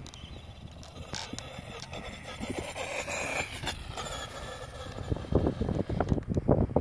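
Brushless motor of a Traxxas Slash 2WD RC truck running on sand paddle tyres, giving a whine that is loudest as it comes close about three seconds in. From about five seconds in, wind buffets the microphone and is the loudest sound.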